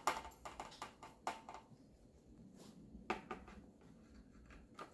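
Faint, irregular little clicks and scrapes of a stir stick working in a small plastic tray, mixing Aquaseal FD repair adhesive with its cure accelerator. There is a cluster of clicks at the start and single ones at about one, three and almost five seconds in.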